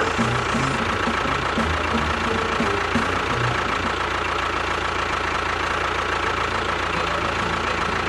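A small motor running steadily with a constant high whine, in a DIY miniature machine.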